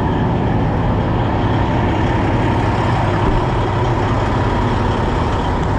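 Heavy diesel truck engine idling steadily, a constant low drone.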